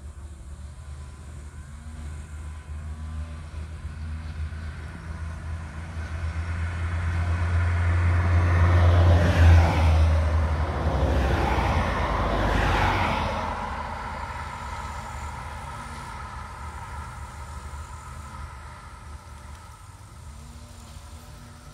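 A motor vehicle passing on the road: a low engine hum and tyre noise that grow louder, peak about nine to thirteen seconds in, then fade away.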